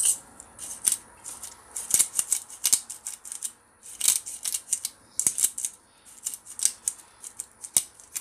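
Glass pepper grinder twisted by hand, its top cracking and grinding peppercorns in a fast run of short gritty crackles, broken by brief pauses between turns.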